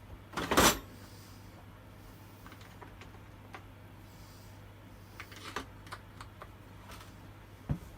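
Small clicks and light knocks of hand tools and saw parts being handled on a workbench, with a louder clatter just under a second in and a few sharper knocks near the end.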